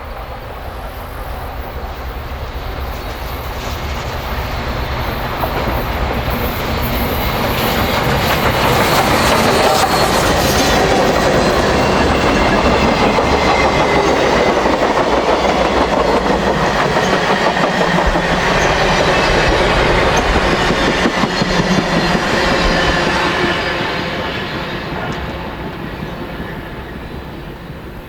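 A train passing close by, its wheels clacking over the rail joints. It grows louder over the first several seconds, stays loud for about twelve seconds, then fades away.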